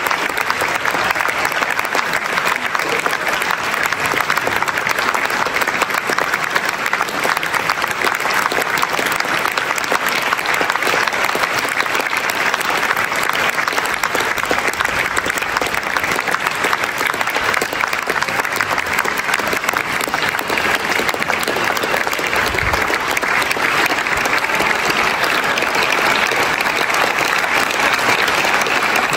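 A large theatre audience applauding steadily through a curtain call, many hands clapping at once at an even level.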